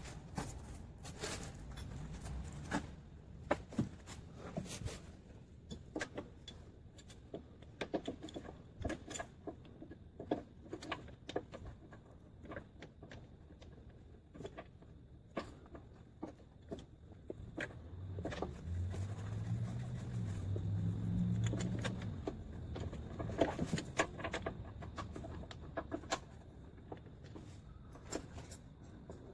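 Irregular clicks, clinks and knocks of hand tools and metal parts being handled during engine-mount work. A low droning hum that shifts in pitch rises and falls between about two-thirds and three-quarters of the way through.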